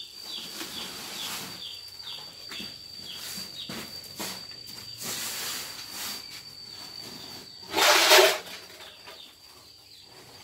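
Green mangoes knocking and rolling on a concrete floor as a sack of them is tipped out, over steady high insect chirping. A louder, brief rustle or thump comes about eight seconds in.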